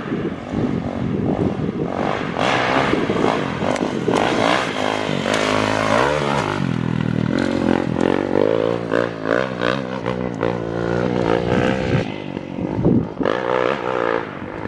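Kawasaki KX450X dirt bike, a single-cylinder four-stroke fitted with an FMF 4.1 RCT slip-on exhaust, ridden hard, its pitch dipping and climbing again and again as the throttle is opened and rolled off. The exhaust note is loud and echoes.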